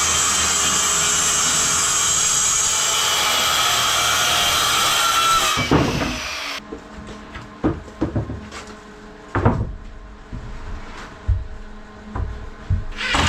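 An electric power tool's motor runs steadily for about six seconds, then winds down and stops. After it come scattered wooden knocks and clatters, like boards being handled, and the motor starts up again near the end.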